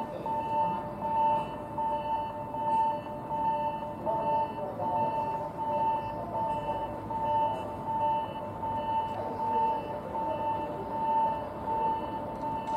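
Electronic warning beep on a railway station platform: one tone repeating in short, evenly spaced beeps without a break, over low background noise.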